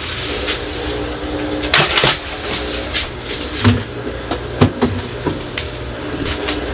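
Irregular knocks and clatter of items being handled and set down, a sharp click every second or so, over a steady low hum.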